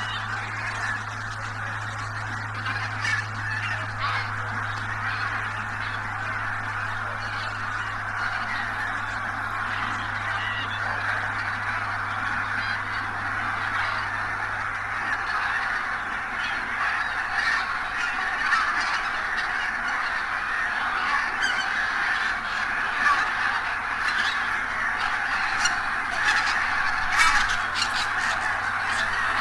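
A large flock of wild geese honking all at once, a dense unbroken chorus of overlapping calls that grows a little louder toward the end.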